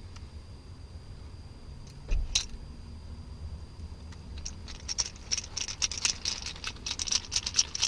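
Hard plastic door-switch panel and its parts being handled: a knock about two seconds in, then quick clicking and rattling from about halfway through.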